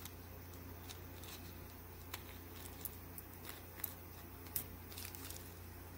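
Faint, scattered light clicks from small glass beads being handled in the palm, over a steady low hum.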